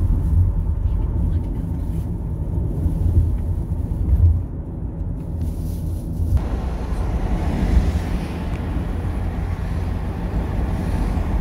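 Road noise of a car driving at speed, heard inside the cabin: a steady low rumble, with a brighter tyre hiss joining it about six seconds in.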